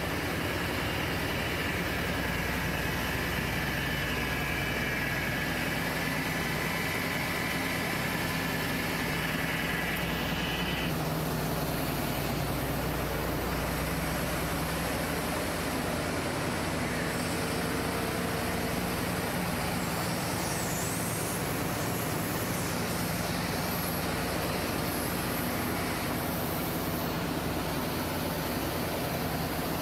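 Steady engine-room din of running marine diesel generator sets and auxiliary machinery, with a high whine that stops about eleven seconds in.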